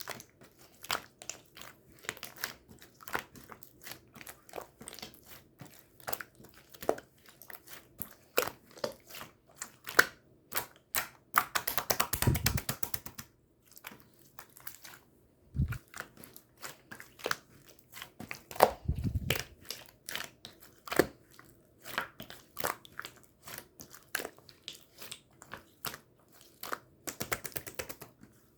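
Two-layer slime being squeezed and pressed by hand: irregular sticky clicks and small bubble pops, with a dense run of crackling about twelve seconds in and a few softer squelches.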